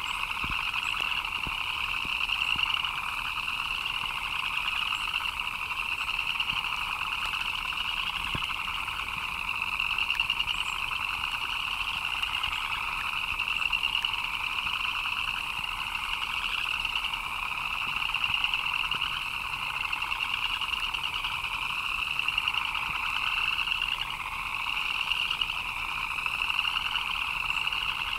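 A dense chorus of many frogs chirping steadily together, a higher chirping layered over a lower trill, without a break.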